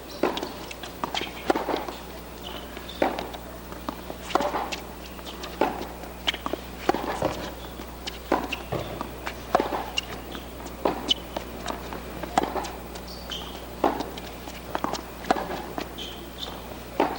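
Tennis groundstroke rally on a hard court: a steady series of sharp pops from racket strings striking the ball and the ball bouncing, roughly one every second.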